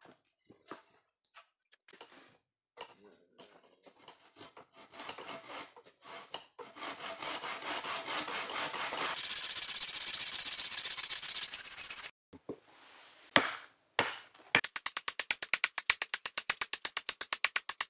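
Hand saw cutting through a dry log in fast, even strokes, starting in a few scattered rasps and building to steady sawing for several seconds before it stops. After a short pause comes a single knock, then a quick, steady run of hammer blows on the wood, about six a second.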